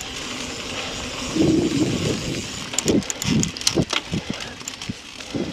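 Mountain bike ridden fast on a leaf-strewn dirt singletrack: tyre noise and wind rush, with a run of sharp clicks, knocks and rattles from the bike over bumps about three to four seconds in.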